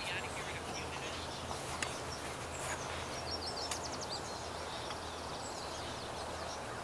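Birds calling outdoors, short chirps and trills scattered through, over a steady low hum and a few sharp ticks.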